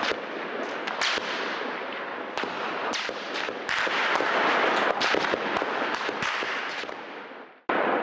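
Gunfire: sharp shots cracking at irregular intervals over a constant loud noisy din. The sound fades out shortly before the end, then cuts back in.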